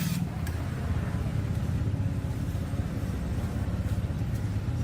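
Steady low mechanical rumble of a running machine, with a fast, even flutter.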